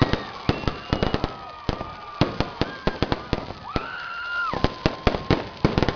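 Fireworks display: rapid, irregular cracks and pops of bursting shells and crackling stars, with a held high tone about four seconds in.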